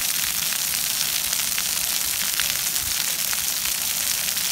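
Splash pad water jets spraying and spattering onto wet concrete: a steady hiss full of small crackling droplet splashes.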